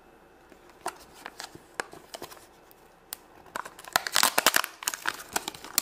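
The sealed lid of a Num Noms blind cup being peeled off by hand: a few light clicks and crackles at first, then dense crinkling and tearing from about three and a half seconds in.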